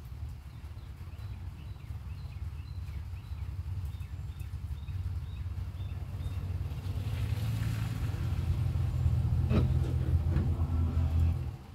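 Low rumble that builds over several seconds and then stops abruptly near the end. Faint short bird chirps come through in the first few seconds.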